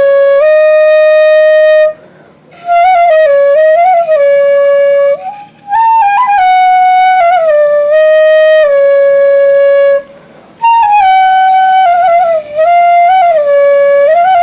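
Solo flute playing a melody of long held notes joined by slides and ornamental bends, with short breaks about two seconds and ten seconds in.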